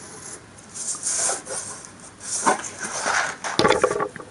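Hobby knife blade drawn along a steel ruler, lightly scoring fold lines into paper in short scratchy strokes. Near the end there is a quick rattle of clicks and knocks as the ruler and sheet are moved.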